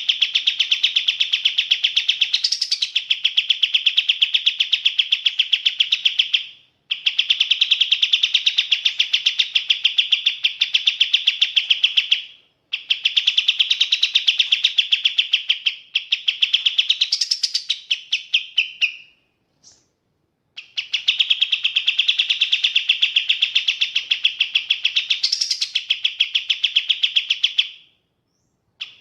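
Kapas tembak bulbul singing in long, rapid trills of evenly repeated high notes, each run lasting several seconds and broken by short pauses. Now and then a higher rising note cuts through.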